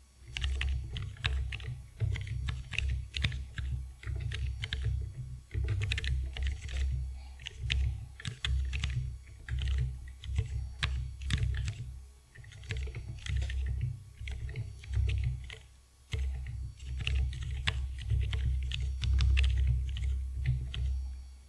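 Fast typing on a ZSA Voyager split keyboard with low-profile mechanical switches: a quick, uneven run of key clicks over a low thudding, with brief pauses about twelve and sixteen seconds in.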